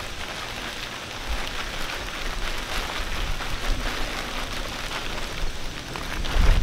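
Stiff Cuben fiber pack liner crinkling as it is folded and rolled closed by hand, a dense crackle of many small clicks.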